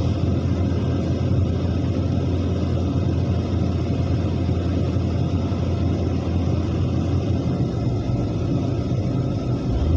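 Diesel engine of heavy construction machinery running steadily, a continuous low rumble.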